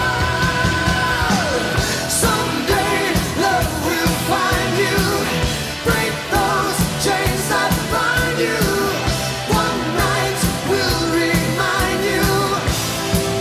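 Background song with a singing voice over drums and a steady beat; a held, wavering note slides down about a second and a half in.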